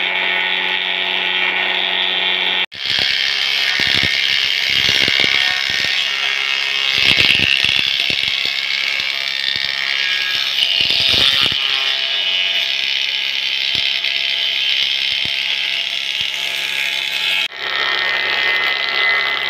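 Electric wood planing machine running with a steady hum while its cutter head shaves boards into thick curls. The cutting noise is louder in the middle, with irregular knocks. The sound changes abruptly about three seconds in and again near the end.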